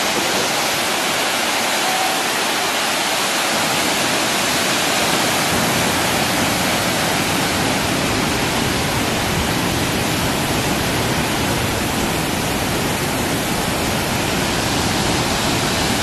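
The Great Falls of the Passaic River, a large waterfall, plunging over its rock ledge into the gorge in a steady, unbroken rush of white water.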